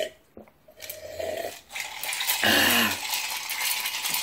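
A person gulping down a drink from a glass, then a long breathy exhale with a short voiced 'ahh' about two and a half seconds in, after swallowing mouthfuls of spicy food.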